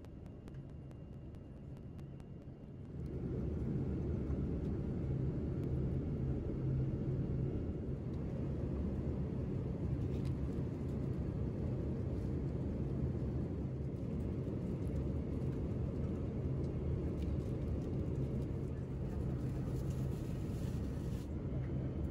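Steady in-flight cabin noise of a Boeing 787: a low rumble of engines and airflow, stepping up in level about three seconds in and then holding even.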